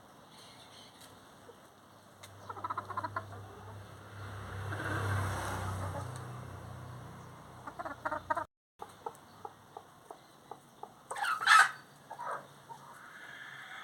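Farmyard chickens clucking in short runs, with one loud, sharp squawk a little past halfway and a drawn-out call near the end. A low hum swells and fades in the first half.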